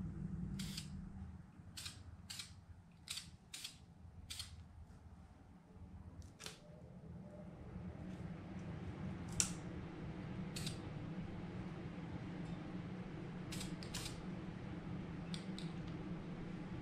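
Aerosol spray paint can hissing in about a dozen short bursts, spaced irregularly, over a steady low hum.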